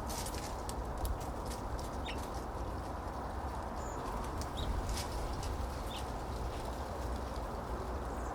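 Birds at a backyard feeder: a few short, high chirps over a steady low background noise, with many scattered sharp ticks.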